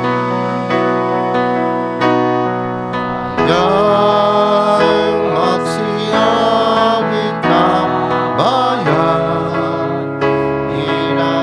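Entrance hymn opening the Mass: held instrumental chords, with a singing voice coming in about three and a half seconds in.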